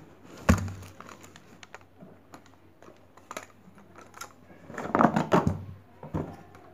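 Folded aluminium KBOOM 3110 camera tripod being handled and laid down: a sharp knock about half a second in, scattered light clicks of its legs and plastic fittings, and a burst of clattering about five seconds in.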